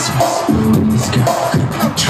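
Pop dance track played loud over a club sound system, with a steady beat.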